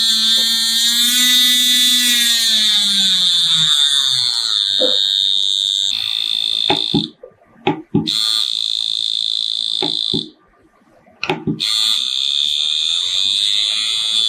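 Tattoo machine motor running with a loud, steady high whine. Its pitch rises and falls over the first few seconds. It is switched off and on twice, with sharp clicks around each stop and restart.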